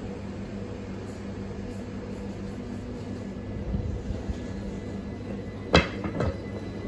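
Southeastern Class 376 Electrostar electric multiple unit pulling slowly out of the platform: a steady electric traction hum with a few low thuds, then two sharp clicks about half a second apart near the end, the loudest sounds.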